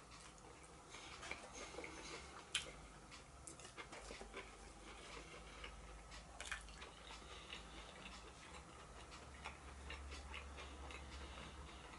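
Faint eating sounds: a metal fork clicking and scraping against a cardboard takeaway box, with soft chewing. There are scattered light ticks, two sharper clicks at about two and a half and six and a half seconds in.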